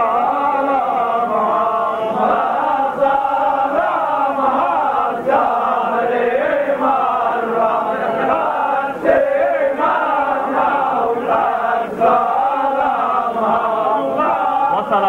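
A group of men's voices chanting together, many voices overlapping without a break.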